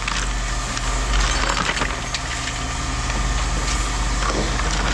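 Pieces of scrap iron clattering and knocking as they are handled and tossed, over the steady low hum of an idling engine.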